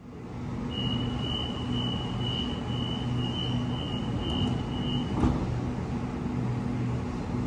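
Electric train at a station: a steady low hum with a thin, steady high whine for about four seconds, and a single click a little past the middle.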